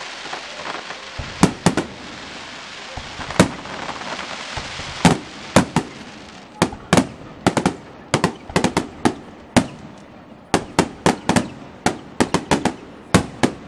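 Aerial fireworks shells bursting in sharp bangs, a few at first and then in quick succession, about two or three a second, from about five seconds in. A steady hiss underlies the first half.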